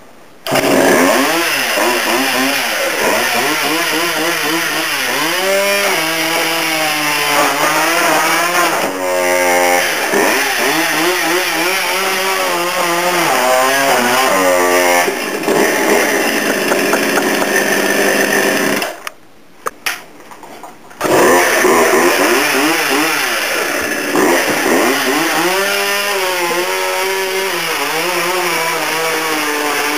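Two-stroke chainsaw running and revving up and down as it cuts through a couch. The saw drops out for about two seconds past the middle, then runs again.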